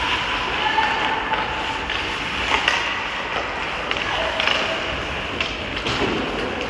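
Ice hockey play: skate blades scraping on the ice with several sharp clacks of sticks and puck.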